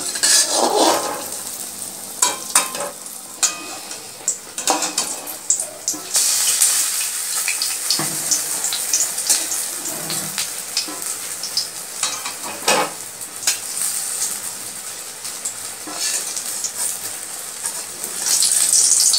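A slice of bread coated in biuli dal (urad dal) batter frying in oil in a steel kadai: a steady sizzle, with clicks and scrapes of a steel spatula against the pan. The sizzle grows louder about six seconds in.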